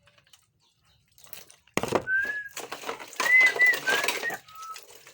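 Dishes and utensils clattering at the sink, starting a little under two seconds in, with a few short high chirp-like tones over the clatter.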